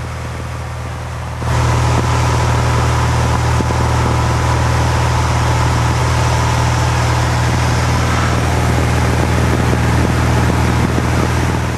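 Cessna light aircraft's engine and propeller droning steadily in cruise, heard from inside the cabin. The drone gets louder about a second and a half in and eases just before the end.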